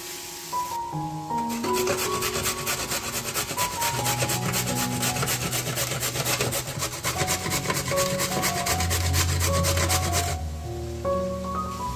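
A carrot being grated on a stainless steel box grater: quick, even rasping strokes that start about a second and a half in and stop about ten seconds in. Soft background music plays under it.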